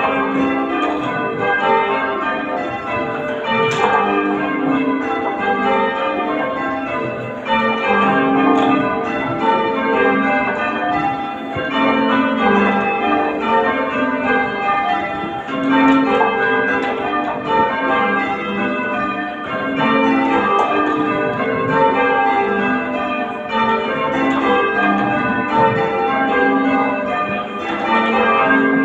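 Church tower bells rung full-circle in changes: a steady, even stream of strikes, each bell sounding in turn. The pattern recurs every few seconds.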